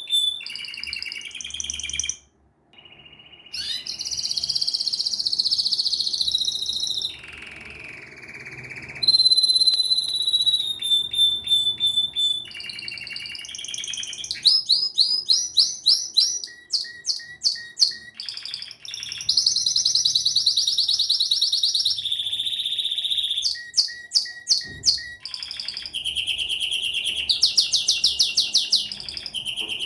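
Domestic canary singing a long, varied song of trills and fast runs of repeated chirping notes, each run at its own pitch. The song breaks off briefly about two seconds in.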